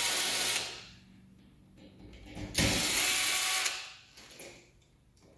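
Cordless drill/driver running in short bursts of about a second each, with quiet pauses between.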